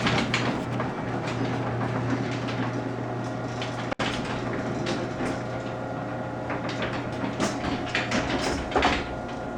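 Electric garage door opener running as it closes a garage door: a steady motor hum with rattling and clicking from the door as it travels down, going on throughout.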